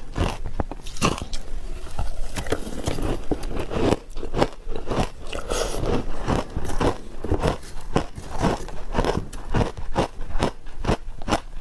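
Ice being bitten and chewed close to the microphone: a quick, irregular run of crunches.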